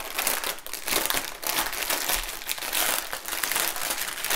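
Plastic packaging crinkling as hands handle a large clear bag packed with small resealable baggies of diamond-painting drills, an irregular run of crackles and rustles.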